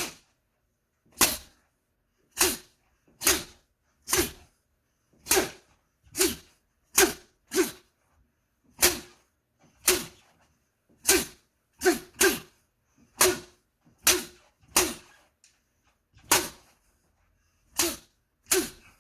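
A hanging sheet of paper snapping sharply under fast whipping strikes, about twenty hits at an uneven pace of roughly one a second, some in quick pairs.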